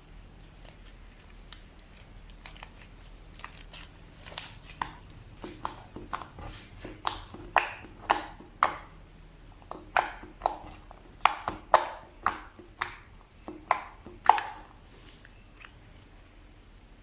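Slime being pressed and worked by hand, giving a string of sharp, irregular pops and crackles that start a few seconds in, grow louder, and stop near the end.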